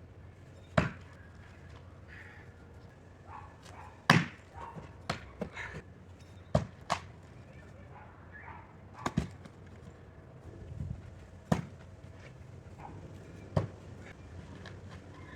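Hand-forged steel throwing knife (kunai) thrown repeatedly into a wooden target, each hit a sharp knock, about ten at irregular intervals, the loudest about four seconds in. This is a durability test, to see whether the blade breaks when it strikes the wood.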